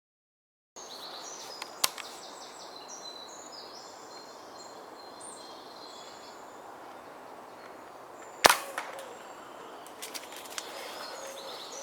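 Birds singing in the open, with a light click about two seconds in. About eight and a half seconds in comes a single sharp crack, the Walther Rotex RM8 .22 air rifle firing, followed by a few faint ticks.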